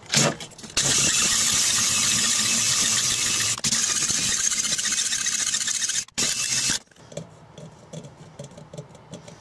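Cordless drill spinning a spring-loaded cylinder hone in the bore of a Briggs & Stratton 2 hp engine: a loud, hissy scraping of the stones against the cylinder wall as the vertical scoring is honed down. It starts about a second in, dips briefly in the middle, pauses once, runs on briefly and stops about seven seconds in. A few light handling knocks follow.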